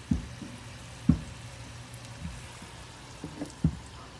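Dull knocks from kitchen handling: a loud one right at the start and another about a second in, then softer ones and a quick cluster of three near the end, over a low steady hum.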